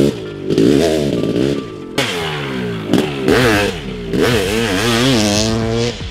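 Honda CR500 single-cylinder two-stroke engine with an FMF dual exhaust, revved hard while riding: its pitch climbs and drops several times, with sharp bursts of throttle about two and three seconds in.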